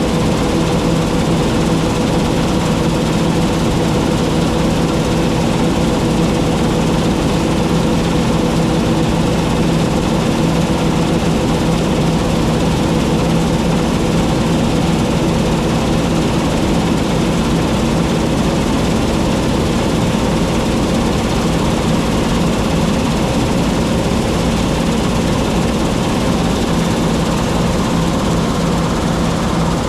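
John Deere T660 combine harvester running steadily under load: an even engine drone with a few steady tones, mixed with the rushing noise of the machinery.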